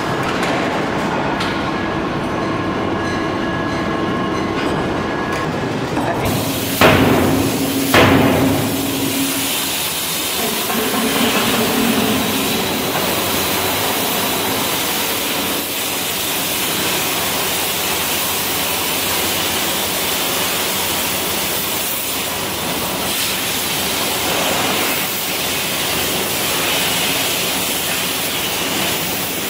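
Lathe machining with a steady whine. Then a steam forging hammer strikes two heavy blows about a second apart on hot steel, each ringing briefly, followed by a steady rushing hiss.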